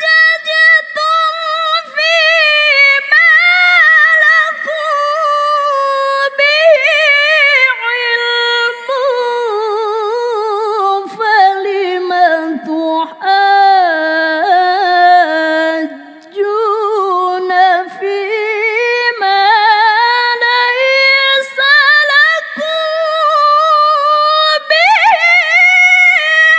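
A woman reciting the Quran in the melodic tilawah style, drawing out long melismatic phrases with quick ornamental wavering of the voice. The line sinks lower in the middle and climbs back high near the end, with only a few short breaks.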